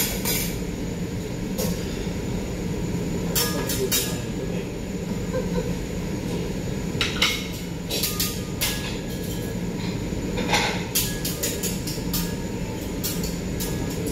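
Metal spatulas clacking and scraping on a teppanyaki griddle: irregular sharp clacks, some in quick clusters, over a steady low rumble.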